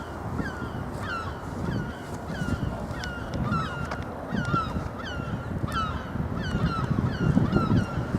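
A bird calling over and over in short, hooked chirps, about two or three a second, over a low background rumble.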